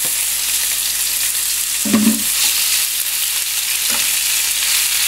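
Thin-sliced beef and garlic sizzling in hot olive oil in a frying pan, stirred with a utensil. A brief thump about two seconds in.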